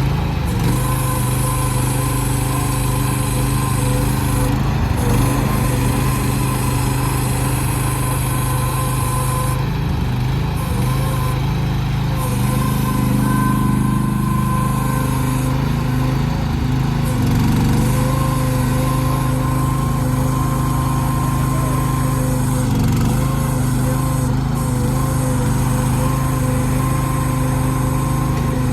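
AGT Industrial QH12 mini excavator's small engine running steadily, with a thin steady whine above it.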